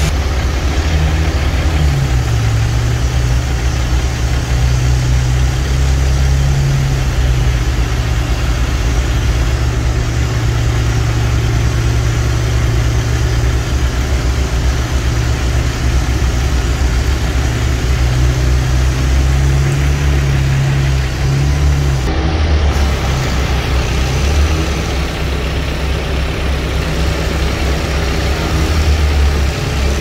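Bucket truck's engine running steadily near idle, its speed stepping down and back up a few times.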